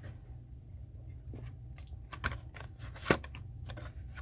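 Die-cast toy car blister packs being handled: a few short rustles and clicks of card and plastic, with one sharp click about three seconds in.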